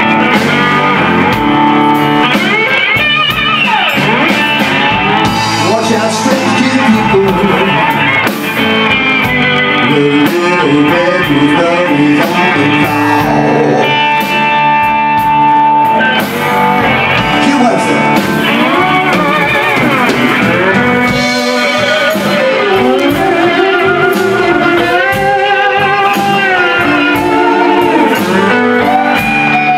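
Live blues band playing electric guitars, bass guitar and drums, with a guitar line of gliding, bent notes.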